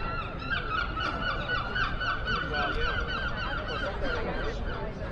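A gull's long call: a fast run of short, repeated calls, about five a second, lasting some four seconds before it breaks off near the end.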